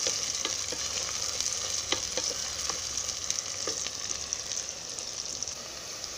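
Sliced onions and green chillies sizzling in hot oil in an earthenware pot, with a spoon scraping and knocking now and then as the mixture is stirred. The sizzle eases off a little near the end.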